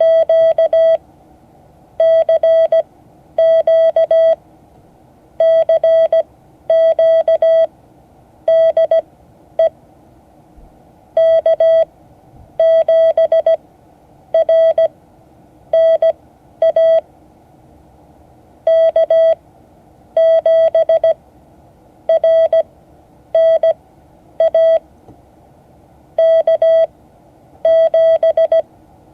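Morse code sent as a single steady beeping tone, keyed in short and long elements with wide gaps between characters: a CQ call from station K7RNA.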